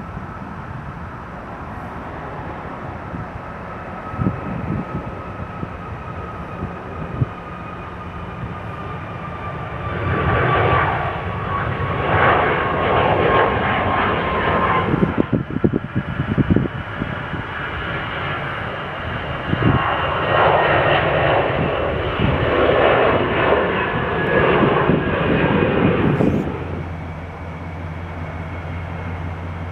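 Jet airliner engines running: a steady whine slowly falling in pitch, with a rushing roar that swells louder twice, about a third of the way in and again past the middle, then gives way to a steady low hum.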